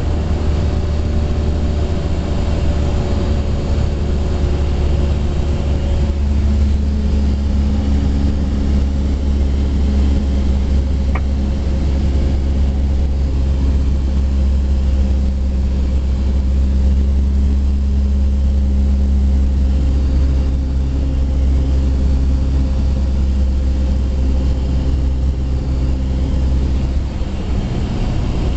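Cabin noise of a Cessna 172SP in flight on approach: its Lycoming IO-360 four-cylinder engine and propeller droning steadily, with a deep hum under a few steady tones that drift slightly in pitch. The drone eases a little near the end.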